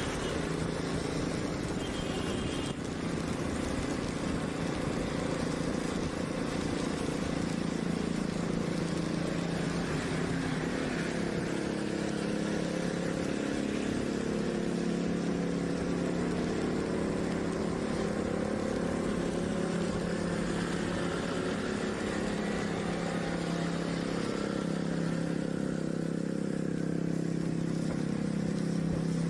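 Motor scooter engine running steadily while riding along, with a hiss of wind and tyres on the wet road.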